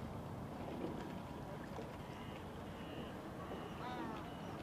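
Steady low outdoor background rumble with a few faint high chirps, and a short pitched call about four seconds in.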